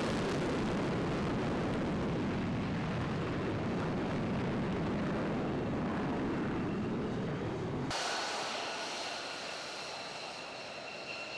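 Lockheed Martin F-35A's single Pratt & Whitney F135 jet engine at full takeoff power in afterburner, a loud deep rumble. About eight seconds in it cuts to a taxiing F-35's engine at low power, a quieter high-pitched whine.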